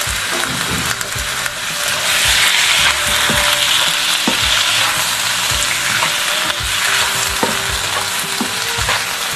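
Sea cucumber and vegetables sizzling in hot oil in a wok while being stir-fried with a flat spatula, which scrapes and knocks against the pan. The sizzle grows louder about two seconds in as the food is tossed.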